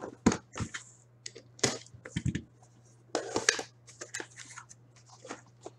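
A sports card box being opened by hand: irregular rustling, scraping and tearing of plastic wrap and cardboard, with a couple of light knocks near the start and a longer rustle about three seconds in.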